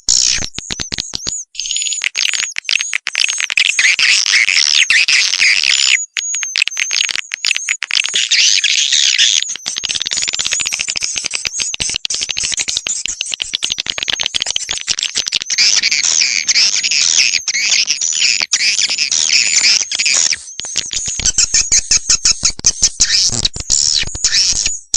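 Swiftlet call recording (a swiftlet-farming lure sound) of dense, high, rapid twittering and chirping from many swiftlets, mixed with fast clicking, with brief breaks now and then.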